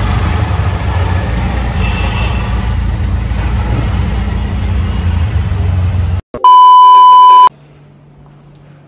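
Steady low road and engine rumble of a moving car that cuts off abruptly about six seconds in. It is followed by a loud electronic beep lasting about a second, a single steady tone, and then a faint low hum.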